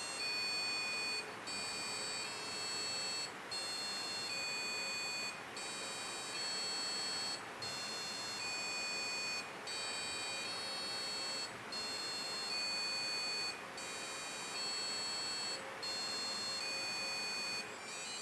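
BBC micro:bit playing a repeating electronic beep sequence: steady tones about a second long, stepping between pitches, with a short break about every two seconds.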